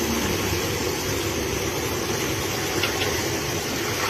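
Steady rushing pour of fresh rubber latex from a bucket into a container, over a low, even hum.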